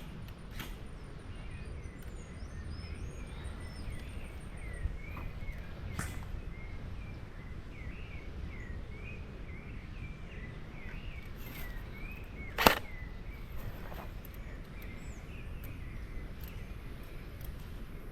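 Small birds chirping over and over, with a fast high trill in the first few seconds, against low wind or handling rumble. A few sharp clicks cut through, the loudest a single crack about two-thirds of the way in.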